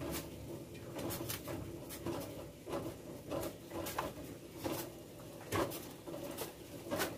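Kitchen clatter: light knocks and clicks about once a second, as of utensils handled around a cooking pot, with a dove cooing in the background.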